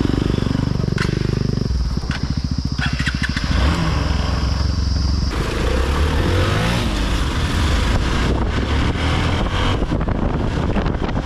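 Hero XPulse 200 single-cylinder motorcycle engine running under way, its pitch rising and falling with the throttle, with a few knocks and rattles.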